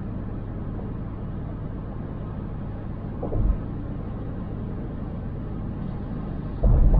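Steady low rumble of a car driving, road and engine noise. There is a short low thud about three seconds in, and a louder low booming begins near the end.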